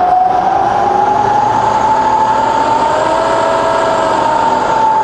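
Bridgeport milling machine's variable-speed head running in reverse, a smooth, quiet spindle whine that rises steadily in pitch as the speed is wound up, then holds level for the last second or two.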